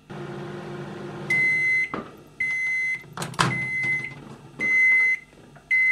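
Microwave oven running with a steady hum that stops about a second in, then its timer beeper sounds five times, one high steady beep about every second, signalling the end of the heating cycle. A sharp clunk of the door being opened comes about halfway through.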